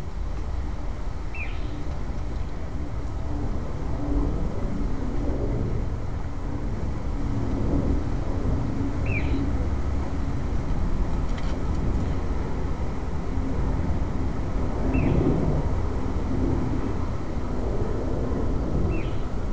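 Steady low outdoor rumble with four short, high chirps a few seconds apart.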